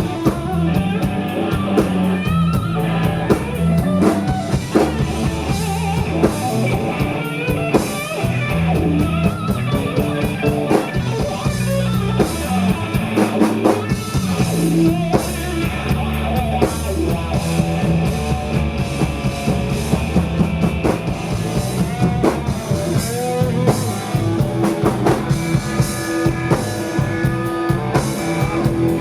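Live band playing an instrumental stretch: guitar lines over bass and drum kit, with a steady beat.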